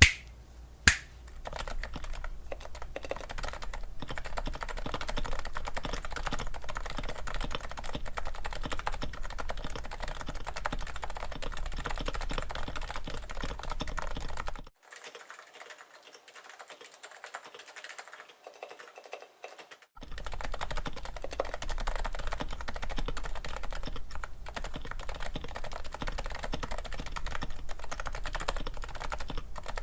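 Continuous typing on a silenced Realforce R3 TKL keyboard with stock silenced Topre switches and lightly lubed stabilizers: a steady patter of soft keystrokes. Two sharp clicks come in the first second, and midway the typing drops away for about five seconds to a few faint taps before resuming.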